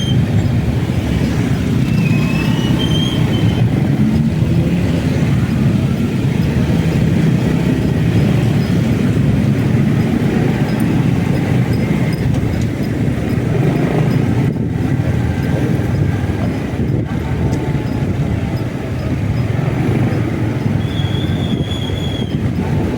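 Steady rumble of a motorcycle ride on a road wet from rain: engine, tyre and wind noise together. A brief high squeal is heard about two seconds in and again near the end.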